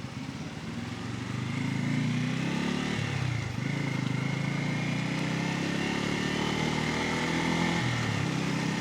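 Bajaj Pulsar N250's single-cylinder engine accelerating under way. Its note rises and drops twice, about three seconds in and again near the end, as the rider shifts up through the gears.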